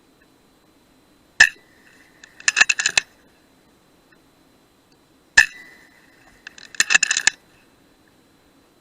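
Two shots from an FX Dreamline Lite .177 PCP air rifle, about four seconds apart. Each is a sharp crack with a brief ringing tone, followed about a second later by a quick run of light metallic clicks.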